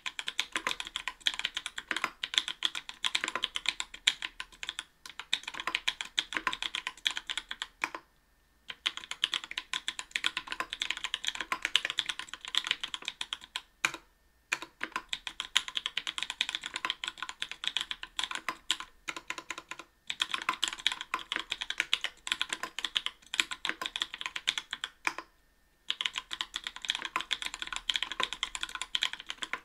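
Continuous typing on a mechanical keyboard with lubed NK_ Blueberry 80 g tactile switches in an aluminium plate, under GMK keycaps: a dense run of keystroke clacks, broken by four brief pauses.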